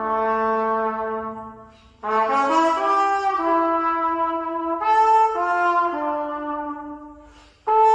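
Trumpet playing held notes with its bell pressed into the end of a long tube. One note fades out about two seconds in, then comes a longer phrase of changing notes that fades away, and a new note starts right at the end.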